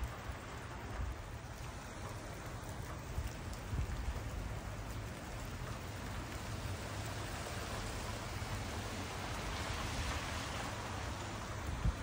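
Heavy, wet snow falling, a steady hiss much like light rain, with an uneven low rumble underneath.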